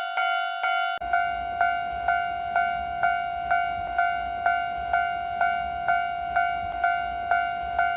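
Japanese railway level-crossing warning bell ringing in a steady, even rhythm of about two strokes a second, each stroke a bright ringing tone that carries over into the next. About a second in, a low background rumble joins in beneath it.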